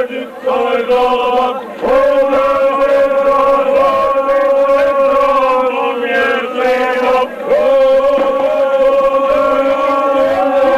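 Group of men singing a chant together in long held notes, the pitch shifting a few times with short breaks about two seconds in and again near the middle.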